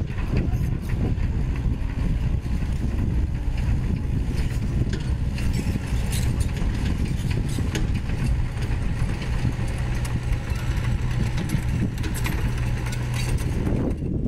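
Sany SY75 mini excavator's diesel engine running steadily as the machine works, with scattered clicks and knocks over the engine sound.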